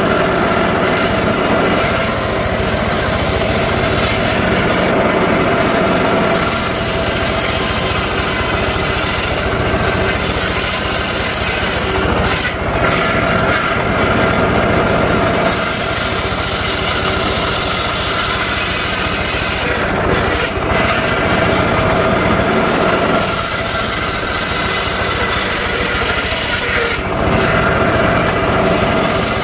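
Homemade circular saw running loudly while it cuts sengon wood, its sound shifting every few seconds.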